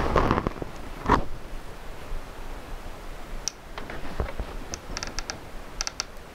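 Low handling noise with a single knock about a second in, then a few faint, short clicks in the second half.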